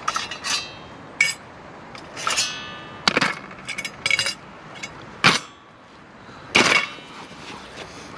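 Metal clinks and knocks of a cooking pot and its lid being handled over a small camp burner, about nine separate strikes, several ringing briefly.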